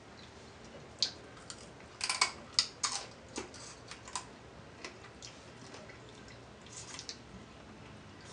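Boiled crab shells cracking and snapping as hands break open crab legs and claws, in a run of sharp clicks and crunches about one to four seconds in and a few more near seven seconds, with the mouth sounds of eating.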